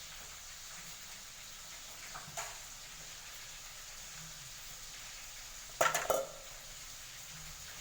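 A utensil clanking against a cooking pot: a single light knock about two seconds in, then a quick cluster of sharp clanks around six seconds in. A faint steady hiss, like a pot cooking on the stove, runs underneath.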